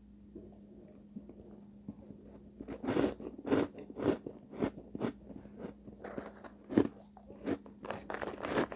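Close-miked chewing of refrozen shave ice. After a quiet start, a run of crisp crunches begins about three seconds in, roughly two a second, as the icy chunks are bitten and ground between the teeth.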